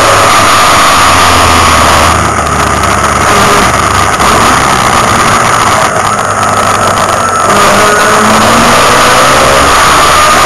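Racing Mazda Capella's engine heard from inside the cabin, loud and hard-running. From about two seconds in the engine note eases off, with a couple of brief dips. Around eight seconds in it picks up again with rising pitch as the car accelerates.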